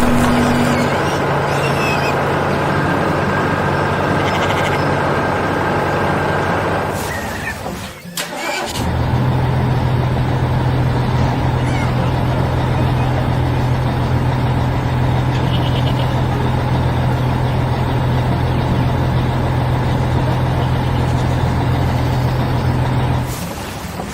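A heavy vehicle engine running steadily with a low, even drone. It dies away briefly about eight seconds in, then starts up again and runs on.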